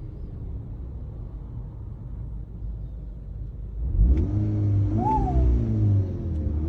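Car engine fitted with a K04 turbocharger runs at a low rumble, then revs about four seconds in. A whine rises and falls in pitch with the rev, and starts rising again near the end. The whine began right after the turbo was installed and is a fault.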